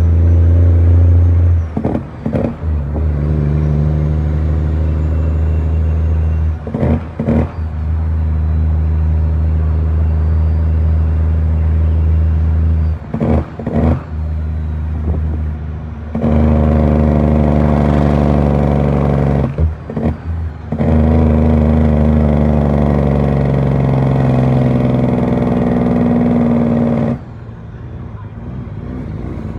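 Western Star truck's diesel engine heard from inside the cab, pulling and working up through the gears. The engine note climbs, then cuts out briefly for each of four gear changes. Near the end it eases off and goes quieter.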